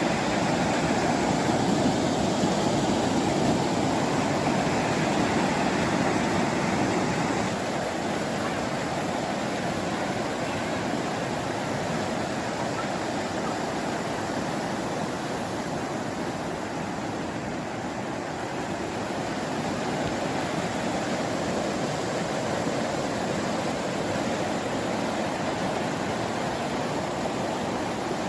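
Steady rushing roar of a river in flood, dropping a little in level about seven seconds in.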